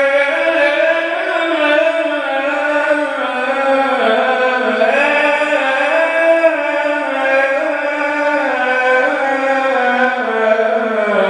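Solo male voice chanting the azan, the Islamic call to prayer, into a microphone. It sings long held, ornamented notes in one unbroken line, stepping down in pitch about four seconds in and again near the end.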